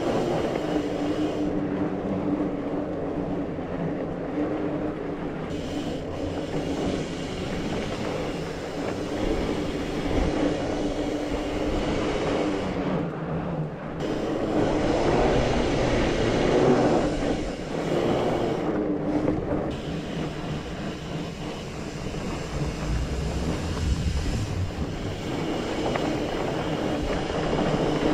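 Mountain bike riding along a dirt singletrack trail: a continuous rumble and rattle of tyres and bike over the ground, with wind noise on the microphone, louder for a few seconds around the middle.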